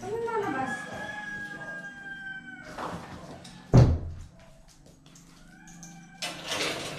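A rooster crowing, one long drawn-out call. About four seconds in, a door is shut with a single loud bang.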